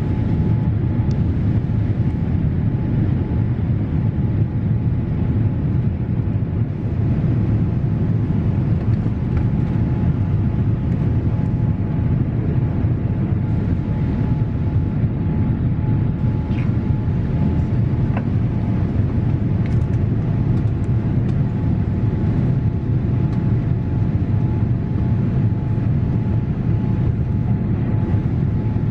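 Steady cabin roar of a Boeing 787-8 airliner climbing out after takeoff, heard from a window seat, with a faint steady whine on top.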